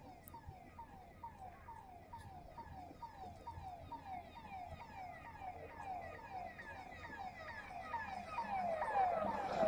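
Vehicle siren sounding in short, repeated falling sweeps, about two a second, growing louder as it approaches. Near the end a louder rush from the approaching vehicle joins it.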